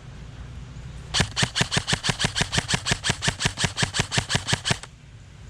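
Airsoft rifle firing a rapid, evenly spaced string of about twenty-five shots, about seven a second, starting about a second in and stopping after about three and a half seconds.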